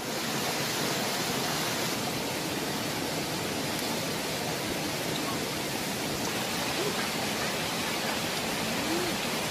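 Steady rush of a stream and small waterfall running over rocks.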